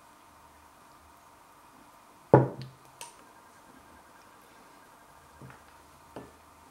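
A glass sauce bottle is set down on a kitchen worktop with one loud thud about two seconds in. A few faint clicks and knocks follow.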